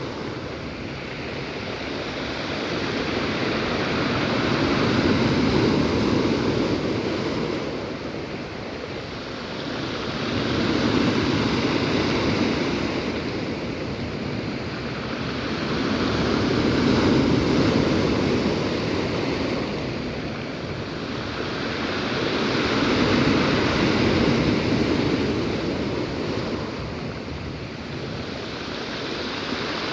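Black Sea surf: waves washing in on the shore in a continuous hiss. It swells and ebbs in surges about every six seconds.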